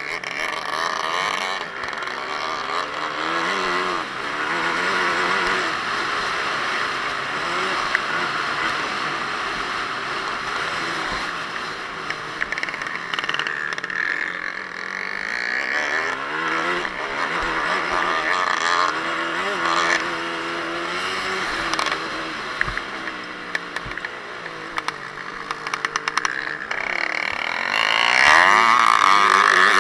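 Yamaha WR250F four-stroke single-cylinder dirt bike engine heard from a camera on the bike, revving up and down again and again through the gears as it is ridden hard over a dirt track. It is loudest near the end.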